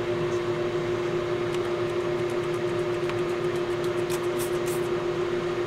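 Metal lathe running with a steady motor and gear hum, turning a thin valve-stem bar in a four-jaw chuck while a small centre drill in the tailstock chuck cuts a centre hole in its end. Faint high ticks come and go in the middle.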